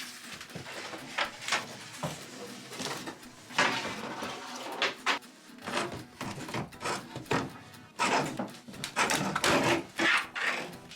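Irregular knocks and cracks of caravan interior panelling being struck and pried out, with a longer rough stretch of tearing and scraping near the end, over background music.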